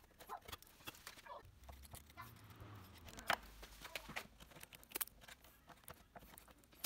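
Light, irregular taps and clicks of hand work on wood, with one sharper knock about a third of the way in and a faint low rumble in the first half.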